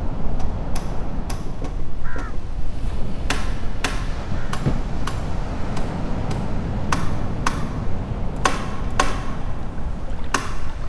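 Sharp clicks, some with a short ring, repeating at uneven intervals, roughly two a second, over a steady low rumble.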